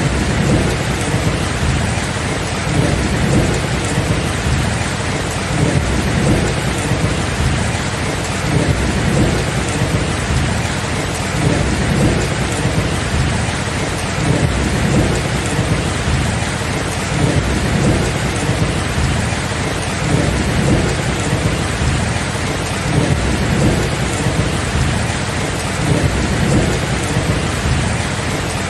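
Steady, heavy rain with low thunder rumbling on and off underneath, with no sharp thunderclap.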